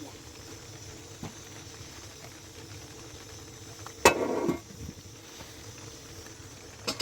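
A single sharp knock about four seconds in, followed by half a second of clatter, over a low steady background; fainter taps come about a second in and near the end.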